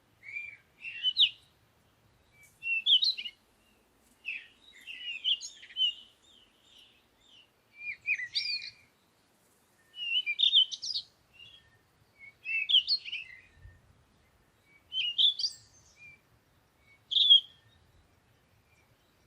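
A songbird singing: short chirping phrases of quickly rising and falling notes, repeated about every two seconds with brief pauses between them.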